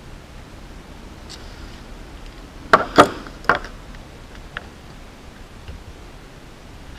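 Soldering iron and tools being handled on a workbench: three sharp knocks and clicks in quick succession about three seconds in, the middle one loudest, then one faint click a second later.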